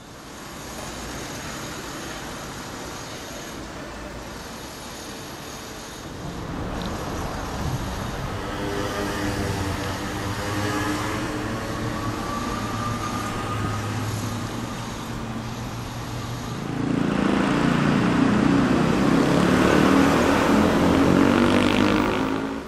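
City road traffic: motor vehicles running and passing close by. Engine sounds come up about six seconds in, with one rising in pitch as it pulls away, and the traffic grows louder again for the last five seconds or so.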